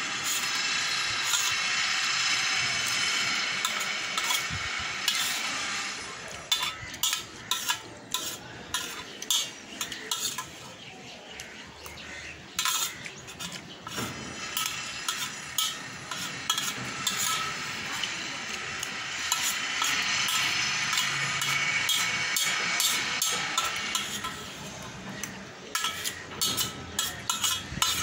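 Metal spoon scraping and tapping on a metal plate while gathering up the last grains of rice. Long stretches of scraping are broken by quick runs of clinks, about 6 seconds in and again near the end.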